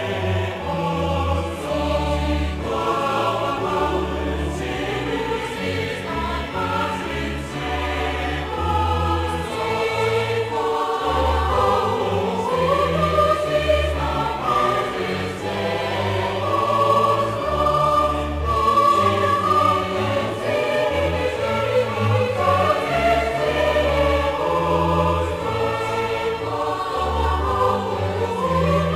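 Background choral music: a choir singing a sacred piece over low held bass notes that change about once a second.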